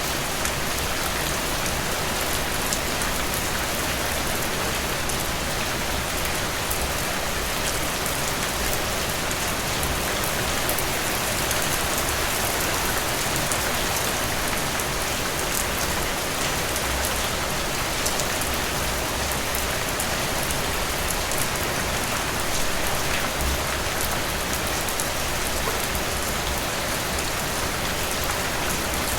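Steady rain falling, an even, unbroken hiss dotted with fine ticks of individual drops.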